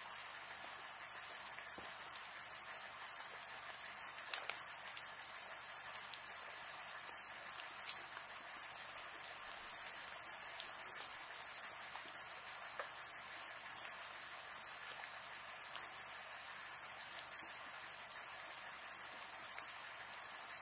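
A night insect, cricket or katydid type, chirping in short, very high-pitched pulses, about one and a half a second, over a steady hiss of rain.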